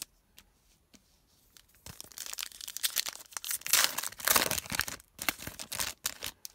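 A foil trading-card pack wrapper torn open and crinkled by hand, with a dense crackle that starts about two seconds in and is loudest around the middle.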